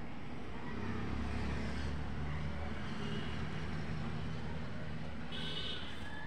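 A motor vehicle's engine running with a steady low hum, swelling about a second in and easing off toward the end.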